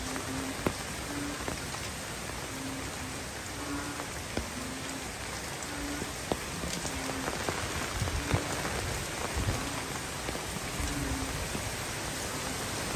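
Heavy typhoon rain pouring onto banana and bamboo foliage: a steady hiss with scattered close drops ticking. Gusts of wind buffet the microphone from about eight seconds in.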